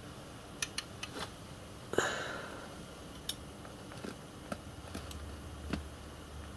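Faint, scattered small metallic clicks and taps of a hooked spring pick and a tiny coil spring against the steel parts of a reversing-stand latch, as the spring is worked onto its pin. One slightly louder click with a brief scrape comes about two seconds in.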